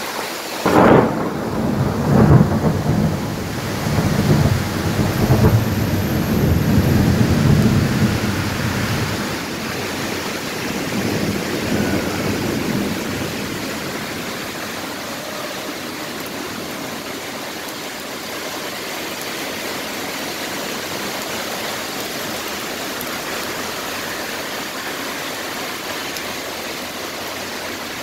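Heavy rain falling steadily on a street. A thunderclap cracks about a second in and rolls on in low rumbles for some eight seconds, with a weaker rumble of thunder around twelve seconds in.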